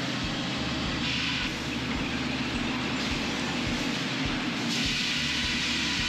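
Cooper sawmill machinery running: the cutup system's saw arbors and chain conveyors give a steady low hum and clatter, with a brief burst of higher hiss about a second in and a longer one near the end.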